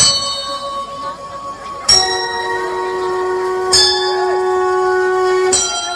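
Bell-like chime notes struck four times, each a different note, about two seconds apart, each ringing on steadily until the next strike. This is the bell sound of the play's background track.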